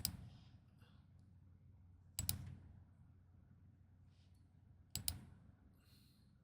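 Computer mouse clicking: three quick pairs of sharp clicks, spaced out over a few seconds, against faint room hum.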